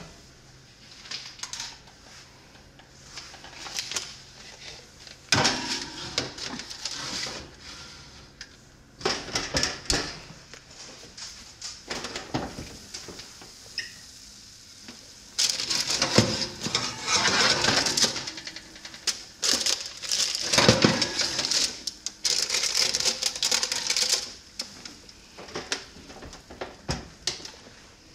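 A metal baking sheet and oven rack knocking and scraping as a tray of bagels is put into the oven. The sound comes in several bursts of clicks and clatter, with the longest and loudest run of rattling a little past the middle.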